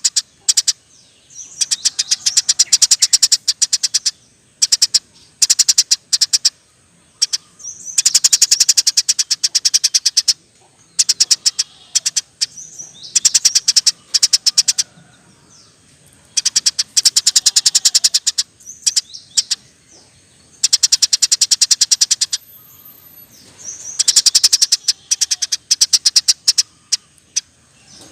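Eurasian tree sparrow chattering in rapid, rolling trains of high chirps, loud bursts of one to three seconds repeating about every few seconds.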